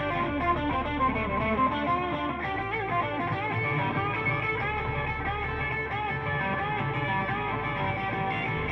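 Instrumental music: plucked guitar notes over a bass line that changes note every second or two, with no singing.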